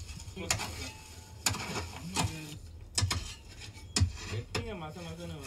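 Hand hoes striking earth as the ground is dug, a dull chop about once a second with uneven spacing.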